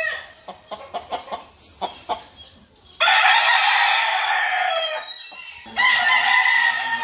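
Gamecock roosters crowing: one long crow about three seconds in and another starting near the end, with short clicks and clucks in the quieter first stretch.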